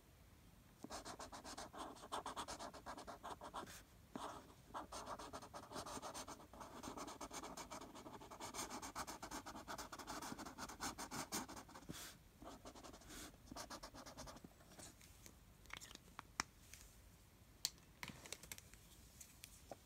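A yellow marker scribbling rapidly back and forth on paper while colouring in. The strokes begin about a second in, thin out to a few scattered strokes and taps after about fourteen seconds, and stop near the end.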